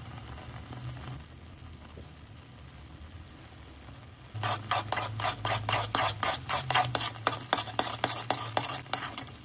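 Jaggery syrup bubbling gently in a heavy-bottomed kadhai. About four seconds in, a spatula starts stirring it, scraping the pan in quick strokes, about four a second.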